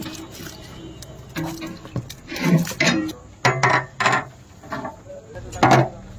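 Metal bowls and plates clattering against a large aluminium cooking pot while ingredients are tipped in by hand, in a few irregular bursts, with indistinct voices.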